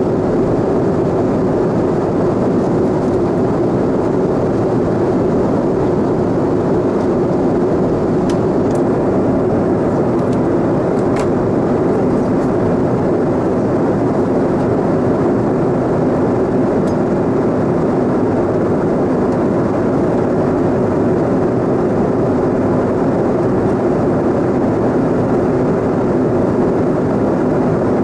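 Steady in-flight cabin noise in the upper deck of a Boeing 747-400: a constant low rush of airflow and jet engine noise, with a few faint ticks near the middle.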